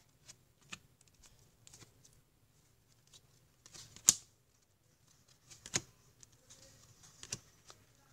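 Glossy cardboard baseball cards handled and flipped through by hand: soft slides and rustling broken by a few sharp snaps and clicks as cards are moved through the stack. The loudest snap comes about four seconds in.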